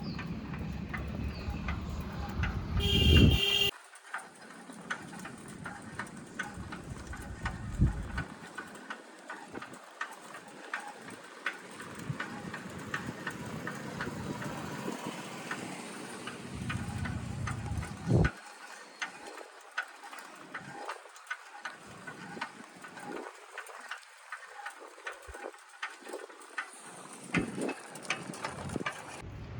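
Road and traffic noise heard from a moving bicycle: a low rumble that swells and fades, a short loud high-pitched blast about three seconds in, and frequent light clicks and rattles.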